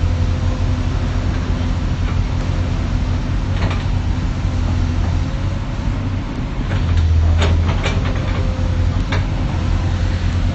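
Excavator's diesel engine running steadily, with a few sharp metallic clanks about three and a half seconds in and several more between about seven and nine seconds in.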